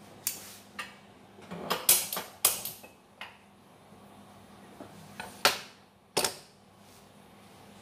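Kitchenware being handled: about a dozen sharp knocks and clatters in irregular groups, the loudest about two seconds in and again about five and a half seconds in.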